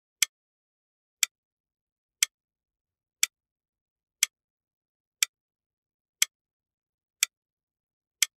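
A clock ticking: one sharp, dry tick each second, nine in a row at an even pace, with silence between.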